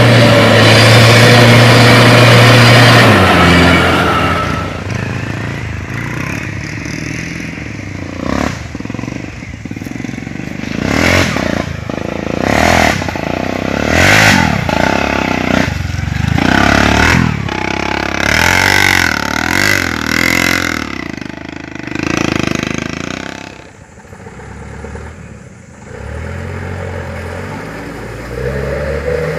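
A heavy cargo truck's engine running hard under load in deep mud, easing off about three seconds in. Then a motorcycle engine revving in repeated bursts as it struggles through the ruts, and a truck engine running steadily again near the end.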